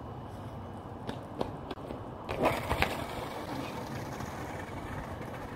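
A skateboarder falling on an asphalt street. A few light clicks from the board come first, then about two and a half seconds in a short loud burst with two knocks close together as the rider goes down.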